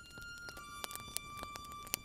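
Harmonica holding one note, then moving to a slightly lower held note about half a second in, with several sharp campfire crackles.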